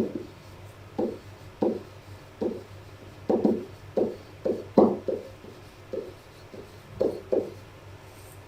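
A series of short, irregular writing strokes, about one or two a second, made by pen or marker on a writing surface.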